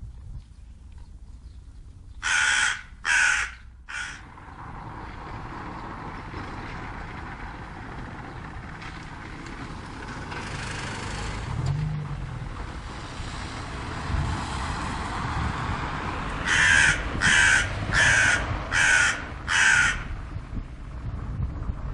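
Crow cawing: three caws about two seconds in, the last one short, then a run of five caws near the end, over steady background noise.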